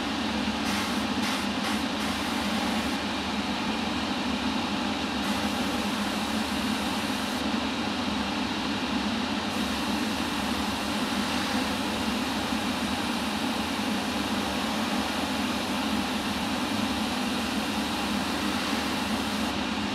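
Steady hiss of a Harder & Steenbeck Infinity CR Plus airbrush spraying paint, over a continuous machine hum. The topmost hiss drops in and out a few times in the first half as the trigger is worked.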